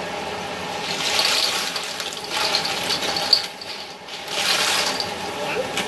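Hard-shelled clams poured from a plastic colander into a steel wok, clattering against the pan and each other in about three bursts of rattling, with one sharp clack in the middle.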